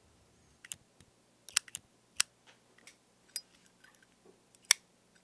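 Zippo metal lighter being clicked: a series of sharp metallic clicks as the lid snaps open and shut, the loudest near the end.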